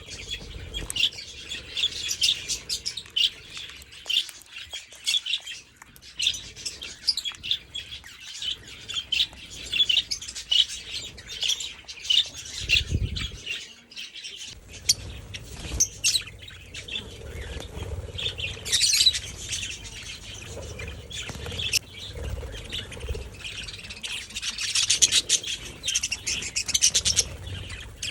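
Major Mitchell's cockatoos calling: a steady run of short, high chirps and squawks, thickest near the end.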